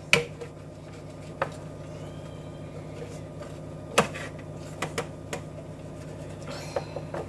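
A few scattered light clicks and taps of a cake tin being handled while it is greased with butter, the sharpest about four seconds in, over a steady low hum.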